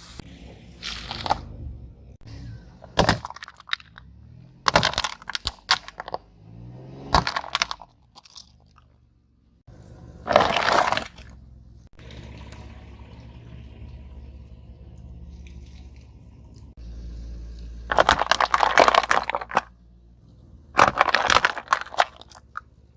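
A series of separate crunching and cracking sounds as objects are crushed under heavy weight, about eight crushes, some sharp snaps and some longer grinding crunches. A low steady rumble runs between them.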